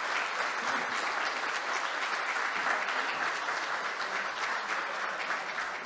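A small seated audience clapping steadily.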